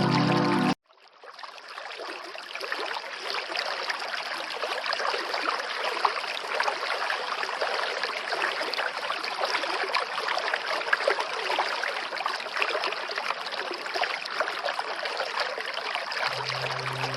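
Steady rush of running water, fading in just after the start and holding evenly. Music cuts off abruptly just under a second in and comes back in near the end.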